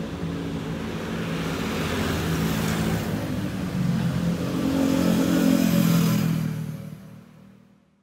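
Road traffic with cars and motor scooters passing, their engines running under tyre noise. It grows louder as vehicles come close about five to six seconds in, then fades out to silence near the end.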